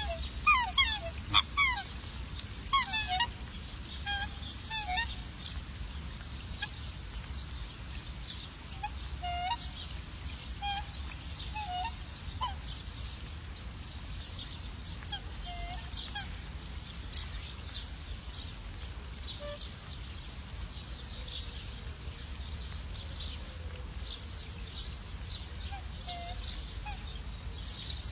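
Black swans calling: a run of high, bugling honks in the first few seconds, then a few softer, scattered calls, over a steady low rumble.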